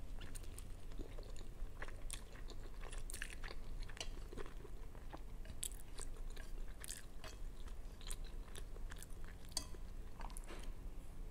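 A person chewing a mouthful of spicy instant noodles close to the microphone, with many short clicks throughout.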